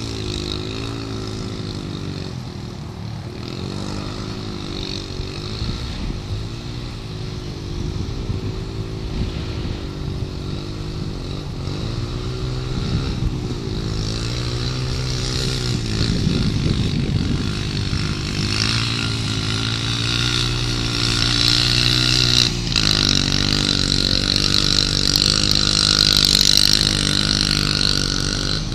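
ATV engine running and revving up and down repeatedly, getting louder toward the end.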